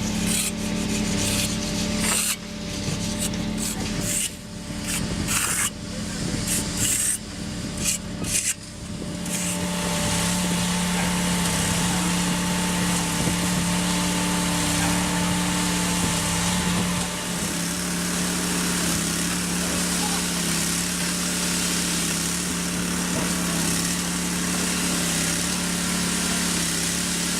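A machine's engine running steadily, with rough, irregular scraping noise coming and going over the first nine seconds or so.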